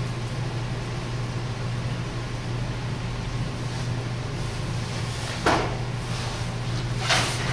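Two samurai swords swishing through the air, a short swish about five and a half seconds in and a longer one near the end, over a steady low hum.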